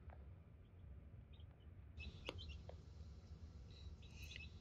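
Newly hatched chicken chicks peeping faintly, short high peeps here and there with a small flurry near the end, over a low steady hum; a couple of faint taps, the loudest about two seconds in.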